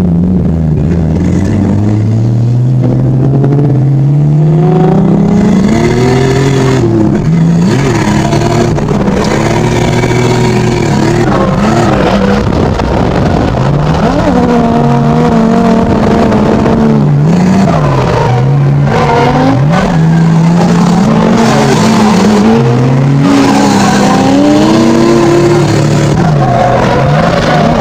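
Drift car engine, heard from inside the cabin, revving hard and rising and falling in pitch again and again through the slides, with tyres squealing.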